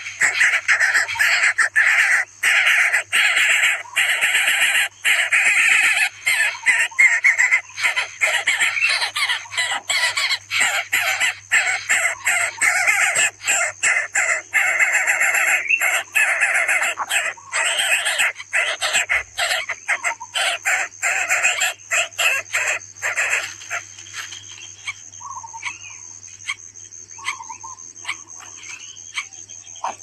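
Coucal nestlings giving harsh, raspy begging calls, loud and almost continuous, broken by brief pauses. About three-quarters of the way through they die down to a few short, softer calls.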